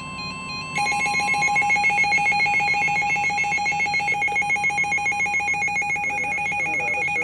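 Emergency Alert System attention tone: a loud, electronic trilling tone that pulses several times a second, starting about a second in after a quieter steady tone.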